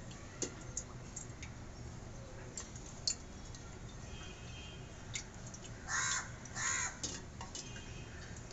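A crow cawing twice in quick succession, two short harsh calls about six seconds in. Faint clicks of a steel ladle against a steel pot are heard as oil is ladled into a steel wok.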